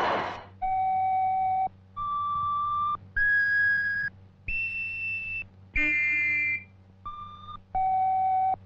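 A whistle blown in separate held notes, about a second each, climbing in four steps. A short sound of several tones at once follows, and then two notes step back down to the starting pitch.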